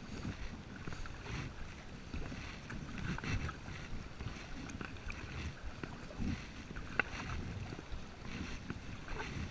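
Double-bladed kayak paddle strokes, the blades dipping and splashing into the water again and again, over wind rumble on the microphone. A sharp tap about seven seconds in is the loudest sound.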